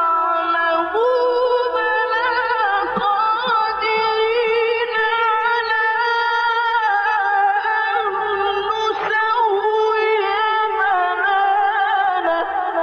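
A male Quran reciter's voice chanting in a drawn-out melodic style, holding long ornamented notes that waver up and down in pitch with only short breaks between phrases.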